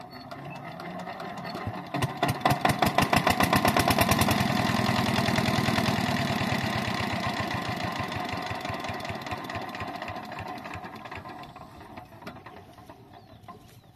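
Lister-type single-cylinder diesel engine on a farm water pump picks up about two seconds in and runs with a rapid, even chugging beat. It is loudest at first and grows gradually quieter.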